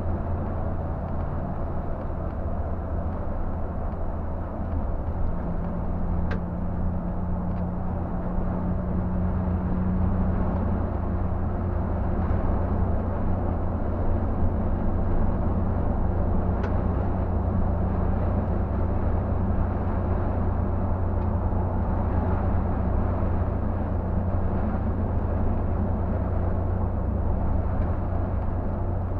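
Scania K124 bus's diesel engine droning steadily at highway cruising speed, about 80 km/h, with tyre and road noise, heard from inside the driver's cab.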